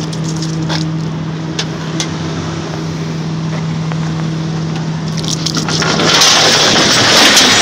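Flatbed tow truck's engine running steadily with a low hum. About six seconds in, a loud hiss comes in and lasts about two seconds.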